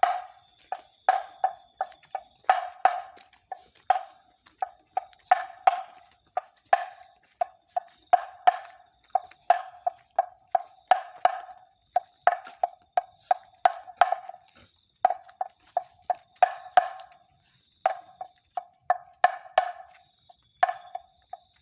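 Bamboo kentongan (slit drum) struck again and again in an uneven knocking rhythm, the night-patrol signal; each knock is short with a brief pitched ring. Steady high insect chirring runs underneath.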